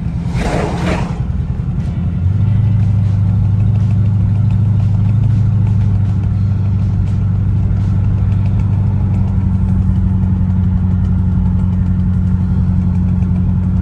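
Engine of a 1969 Ford sedan pulling the car along on a test drive, heard from inside the cabin: a steady low drone that steps up and gets louder about two seconds in as the car picks up speed, then holds.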